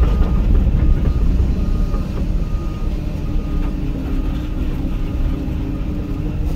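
Hyundai HX220AL excavator's diesel engine running steadily under working load, with a short alarm beep repeating about once a second.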